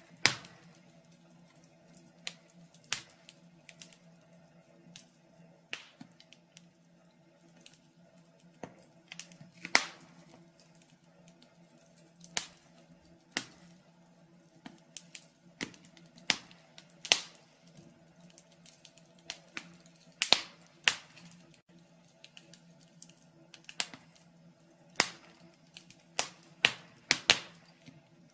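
Wood fire in a fireplace crackling: irregular sharp pops and snaps, about one a second, over a faint steady low hum.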